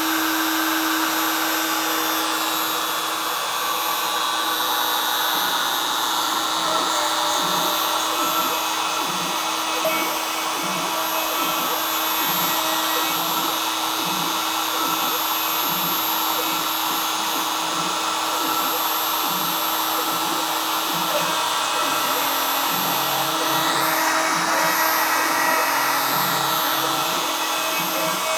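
High-speed CNC router spindle running steadily, with a constant whine, as it mills a carbon fiber sheet held under water in a milling bath.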